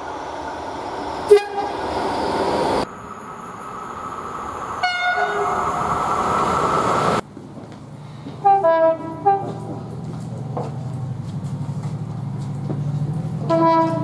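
Train horns sounding in several separate short blasts: one about a second in, one about five seconds in, and a few quick blasts near nine seconds. A last blast comes near the end from a diesel locomotive whose engine is running underneath. The background changes abruptly between the blasts.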